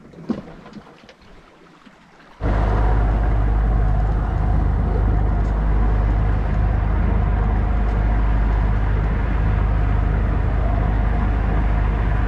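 A sailing yacht's inboard engine running steadily and loudly, starting abruptly about two and a half seconds in after a quieter opening.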